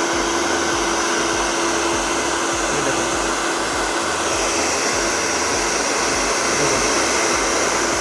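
Choaba 2000-watt hair dryer running on its higher airflow speed: a steady rush of air with a constant motor whine.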